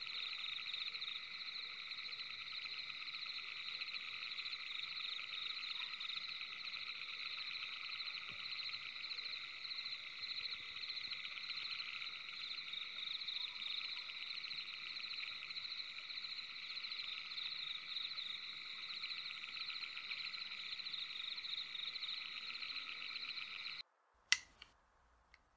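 Steady night chorus of frogs, fast trilling calls layered in several pitches. It cuts off abruptly near the end, and a wall light switch clicks sharply, then once more faintly.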